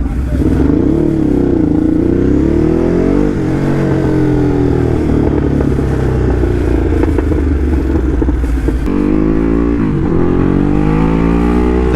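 Ducati Hypermotard SP's V-twin engine running loud, its note rising and falling with the throttle. The note holds steady for several seconds, drops sharply about nine seconds in, then climbs steadily.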